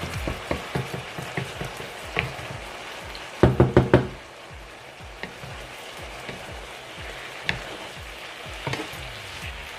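Lemongrass-marinated chicken strips frying in a pan with a steady sizzle, while a utensil stirring them makes small scrapes and taps. About three and a half seconds in there are four quick, loud knocks.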